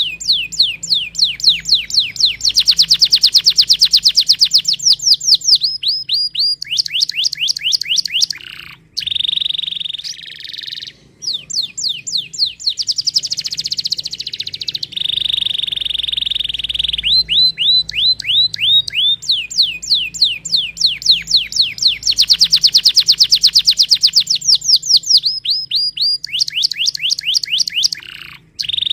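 Domestic canary singing a long, loud song of rapid trills, quick falling swept notes and held buzzy rolls, with the same run of phrases repeated twice.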